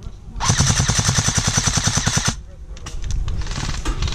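Airsoft gun firing two long full-auto bursts of rapid, evenly spaced shots, with a short pause between them.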